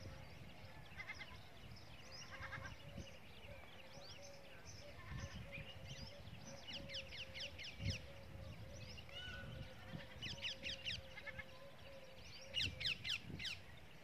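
Small birds twittering in several short bursts of quick, high, falling chirps, loudest near the end, over a low rumble.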